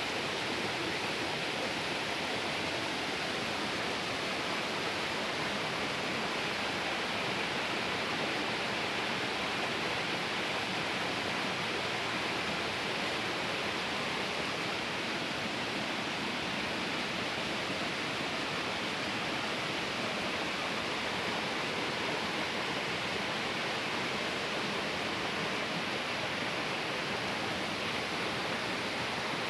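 Shallow stream water rushing steadily over rocks and pebbles.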